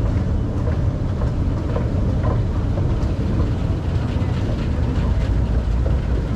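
Singapore MRT train running, a steady low rumble with faint clicks from the wheels and track.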